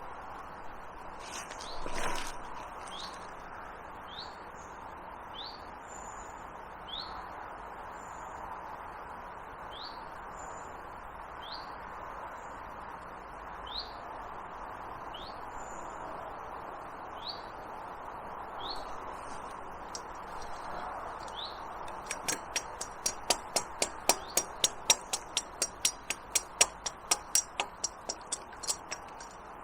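A steady rush of river water, with a bird repeating a short rising call about once a second and a brief rustle about two seconds in. About three-quarters of the way in, a centrepin reel's ratchet starts clicking rapidly and evenly, about three clicks a second, as the line is wound in.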